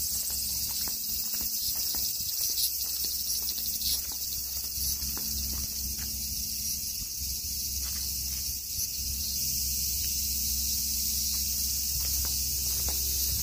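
Insects chirring in a steady, high-pitched drone, with footsteps on paving and a low steady rumble underneath.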